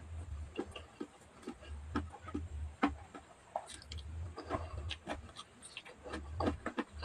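Close-up eating sounds of a person chewing with the mouth closed: an irregular run of wet mouth clicks and lip smacks, with dull low thuds every second or two.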